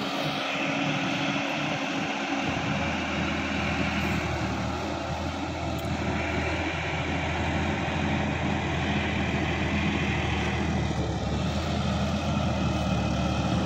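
Sonalika DI-50 RX tractor's diesel engine running steadily while it works a flooded, muddy paddy field: a continuous drone that grows deeper and fuller about two and a half seconds in.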